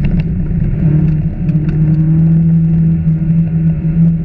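Rally car's engine running at high, steady revs on a gravel stage, heard from inside the cabin. The revs dip briefly about a second in, and there are a few sharp clicks.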